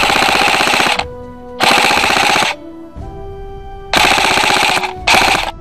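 Airsoft rifle firing on full auto: four bursts of rapid shots, each about a second long, with the last one shorter. Background music plays underneath.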